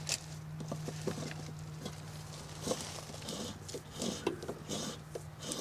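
Faint rustling, scraping and small clicks of an electrical cable being fed by hand through the hole of a metal inlet box, over a steady low hum.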